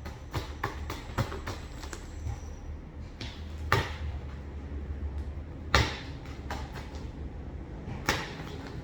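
Cardboard shipping box being forced open by hand without scissors: a quick run of small clicks and scrapes, then three louder, short ripping strokes spaced a couple of seconds apart.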